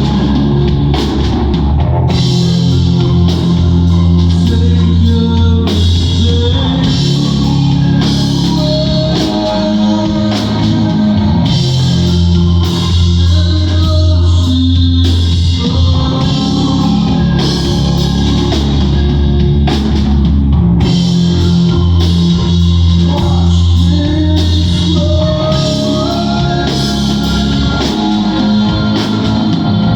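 Loud live rock band playing, with drum kit, guitar and heavy sustained bass notes.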